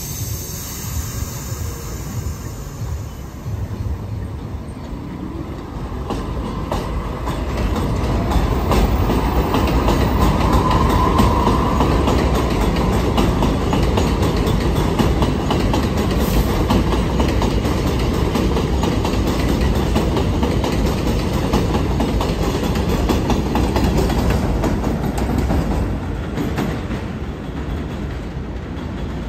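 R62A New York subway train running on elevated track: a steady rumble and clickety-clack of steel wheels over rail joints, growing louder about seven seconds in and easing near the end. A brief higher squeal about ten seconds in.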